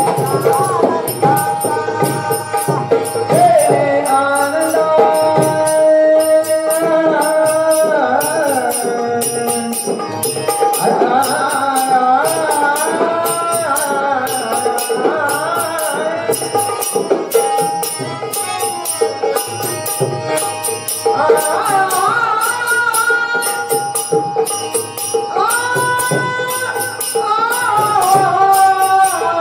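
A Marathi gaulan devotional song: a gliding sung melody over percussion, with small hand cymbals striking a steady beat throughout.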